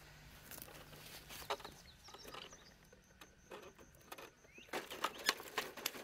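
Irregular rustling and crackling of dry leaves and brush underfoot and by hand, coming in several short clusters with the loudest near the end.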